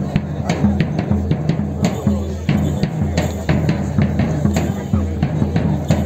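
Music: drums struck in a steady, quick beat over low sustained bass tones.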